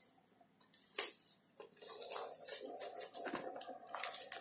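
Plastic-sleeved cross-stitch kit packets being handled and shifted, rustling and crinkling in short irregular spells, with a sharper crackle near the end.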